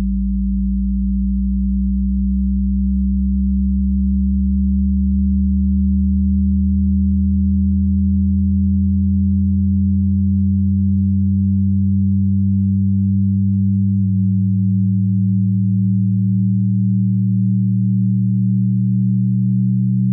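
Low electronic drone of several steady, pure tones layered together. One low tone fades out and another fades in over the first half, and one of the tones shifts slightly in pitch about fourteen seconds in.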